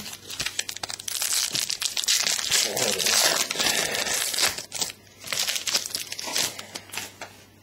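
Foil trading-card pack wrapper crinkling and crumpling in the hands, dense for about five seconds, then a few lighter rustles that die away near the end.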